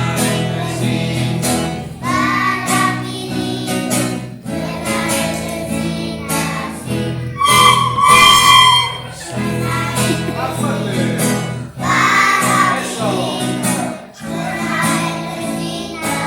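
Children singing a children's song with flute and instrumental accompaniment, the melody returning in short phrases every few seconds.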